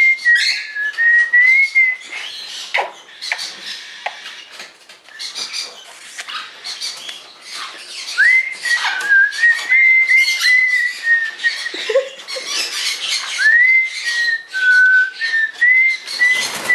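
A whistled melody, a clear single tone that glides and wavers, comes in three phrases: at the start, about eight seconds in, and again near the end. Short squeaky chirps and scratchy bird chatter run throughout.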